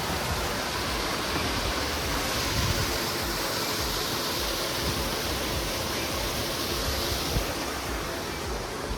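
Steady rush of water from a fountain, splashing continuously.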